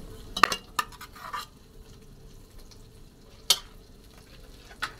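A serving spoon clinking and scraping against a pot and plate as food is dished up. There is a quick cluster of clinks about half a second in, then single sharp clinks past the middle and again near the end.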